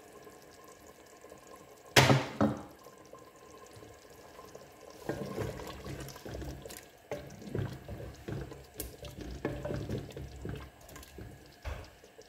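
A loud double clatter about two seconds in as the clay handi's lid is set aside. Then a wooden spoon stirs and scoops the watery beef curry in the clay pot, sloshing liquid and knocking against the pot.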